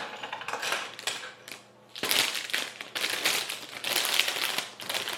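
Hands sorting through loose plastic Lego pieces, with clicking and rustling that grows louder and denser about two seconds in.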